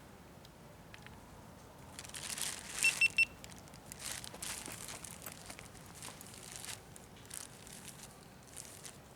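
A monkey handling and eating food, with crinkling and rustling in bursts from about two seconds in. About three seconds in come three short, high squeaks in quick succession, the loudest sounds.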